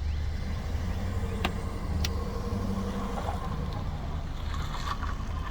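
A car running along a road: a steady low engine and road hum, with a couple of faint sharp clicks.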